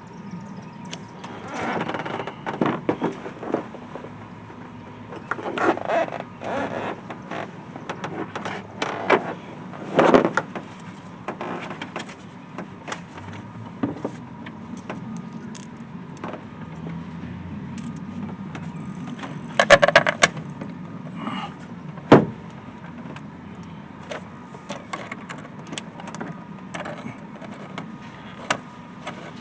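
Scattered clicks, knocks and clatter of hand tools and metal parts being handled while fitting an air intake in a truck's engine bay, with a few louder knocks and a steady low hum underneath.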